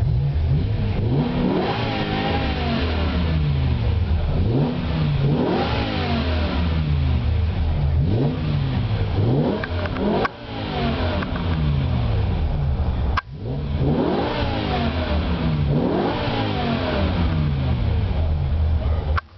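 BMW M6's V10 engine, heard from inside the cabin, being revved in neutral in repeated throttle blips, each rev rising and then falling back toward idle.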